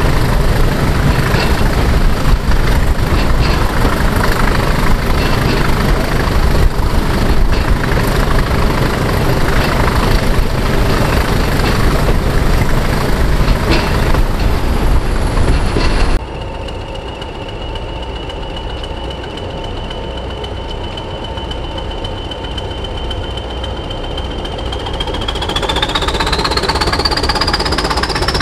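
A heritage railway locomotive working under power, loud and clattering. After an abrupt cut about 16 seconds in it is quieter, with a steady high whistle that rises in pitch near the end.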